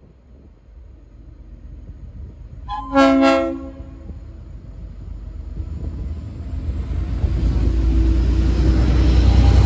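Leslie RS5T five-chime air horn on a V/Line N class diesel locomotive sounding one short blast about three seconds in. After it, the locomotive's diesel engine rumble grows steadily louder toward the end.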